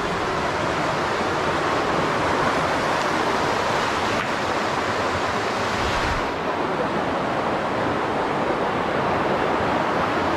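Mountain river rushing steadily over rocks; its high hiss dulls a little about six seconds in.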